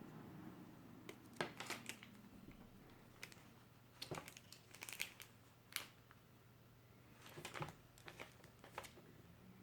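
Faint, scattered clicks and crinkles of hands handling a keyboard and its packaging, some coming in quick little clusters, with a low hum under them.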